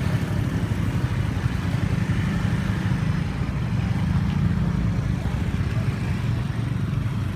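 A large engine running steadily with a low, even rumble.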